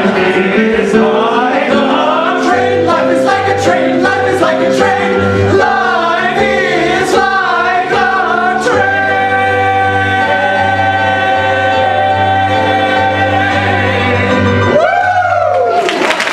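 A group of men singing a show tune together with live keyboard accompaniment. The song ends on a long held chord, followed by a short rising-and-falling vocal slide. Audience applause breaks out just before the end.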